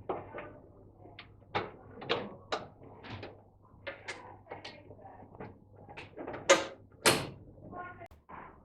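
Irregular clicks and knocks from fitting a new oven door seal and pushing its corner clips into place, with two sharper, louder clicks about six and a half and seven seconds in.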